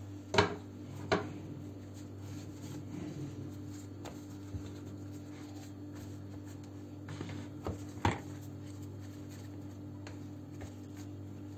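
Hands folding and pressing thin yufka pastry sheets in a metal baking tray: soft papery handling with a few light knocks, the clearest near the start and about eight seconds in, over a steady low hum.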